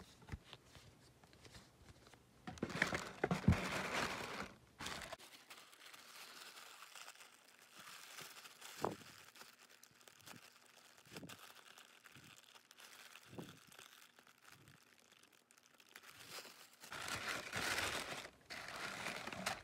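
Paper packaging and tissue paper rustling and crinkling as it is handled and unwrapped, louder a few seconds in and again near the end, with quieter handling and a few light taps between.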